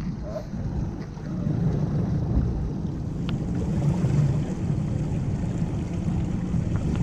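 Fishing boat under way at sea: a steady low engine hum with wind and water noise.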